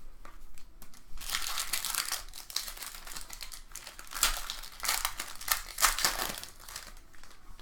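Trading-card pack wrapper being torn open and crinkled by hand, a dense crackling that comes in several surges over about five seconds.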